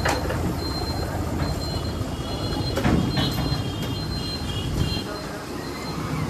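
Fuel dispenser pumping petrol into a motorcycle's tank: a steady low running hum that drops away about five seconds in. A high beeping tone comes and goes over it, with a couple of sharp clicks.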